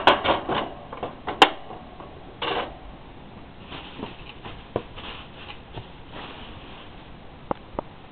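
Clicks and knocks of a wire-and-plastic hamster cage being handled, a quick cluster in the first second and a half. Then quieter rustling, and a few light ticks near the end.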